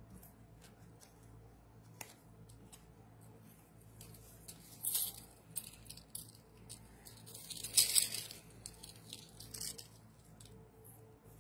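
Jewelry and a hair clip being handled close to the microphone: soft rustles and light clicks, with two louder rustling bursts about five and eight seconds in.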